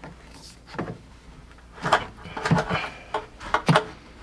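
PEX water line being worked onto a pipe fitting overhead: a few irregular knocks and clicks of plastic tubing against the fitting and joists, with some scraping.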